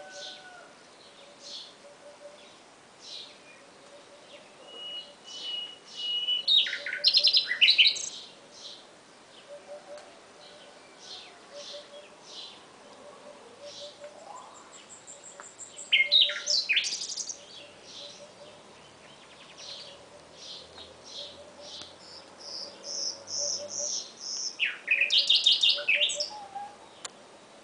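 Nightingale singing: three loud phrases of rapid repeated notes and held whistles, about ten seconds apart, with quieter chirping in between.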